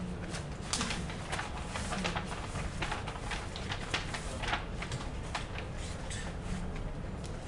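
Computer keyboard keys clicking in irregular runs of typing, several keystrokes a second, over a steady low hum.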